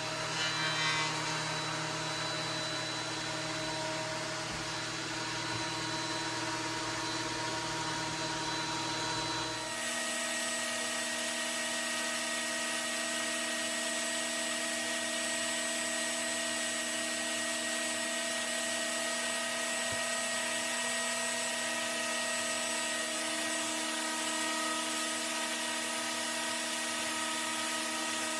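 Ridgid 13-inch benchtop thickness planer running steadily, its motor and cutterhead giving a continuous whine over a high hiss. About ten seconds in, the sound changes abruptly to a higher, thinner tone with the low rumble gone.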